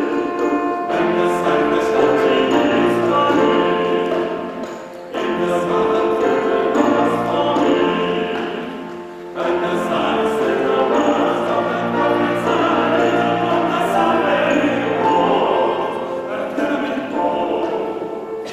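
Male vocal ensemble singing in parts, in three sung phrases that each fade before the next begins, about 5 and 9 seconds in.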